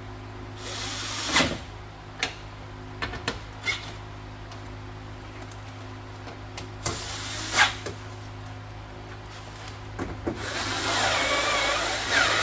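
Scattered clinks and knocks of metal parts and tools inside a pickup truck's door shell as the power window regulator is fastened in, with a couple of longer rustling scrapes, the longest near the end.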